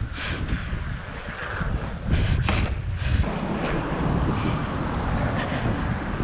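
Wind buffeting the microphone with a steady low rumble, and a couple of short knocks about two and a half seconds in.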